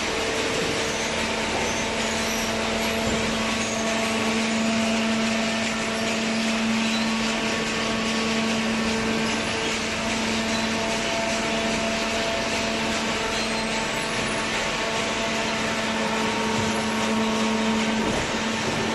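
Paper baler machinery running steadily: a constant motor hum with several steady tones over a hiss.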